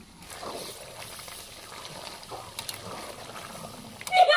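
A metal spatula stirring a thick, wet curry in a steel kadai, with a few light clicks of metal on the pot. Near the end a woman bursts out laughing, the loudest sound.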